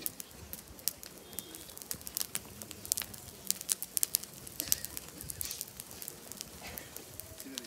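Small outdoor bonfire of sticks and brush crackling, with sharp pops at irregular intervals.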